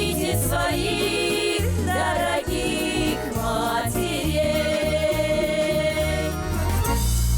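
A folk ensemble singing a Russian folk song in chorus over instrumental accompaniment with a bass line, holding one long note in the middle.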